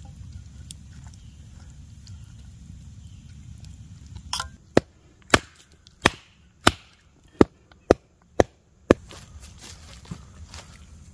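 Wood-on-wood knocks: a wooden mallet striking the top of a wooden stake, eight sharp strikes about half a second apart.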